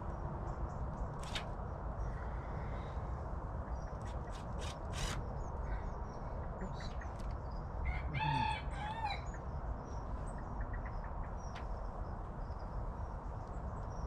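A rooster crows once, about eight seconds in, a pitched call of a second or so that breaks in two. A few sharp clicks and faint small-bird chirps sound earlier, over a steady low rumble of background noise.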